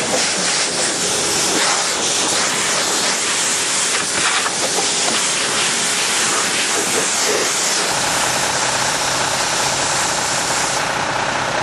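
Water jetting from a fire hose onto a fire engine: a loud, steady hiss of spray. About eight seconds in, a steady low hum with a held tone joins in.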